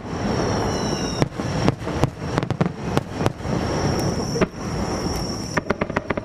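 Aerial display fireworks bursting in quick succession: sharp bangs and crackling over a continuous deep rumble, with a high whistling tone, some of it falling in pitch about a second in.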